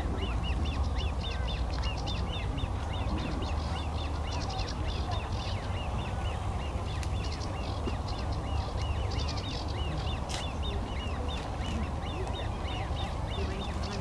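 Great crested grebe chicks begging: a continuous run of thin, high piping calls, about four a second, as an adult brings them a fish. A steady low rumble lies underneath.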